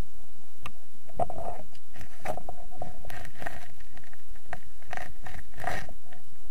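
Underwater noise during a spearfishing dive: irregular gurgling bursts of water movement, with scattered sharp clicks.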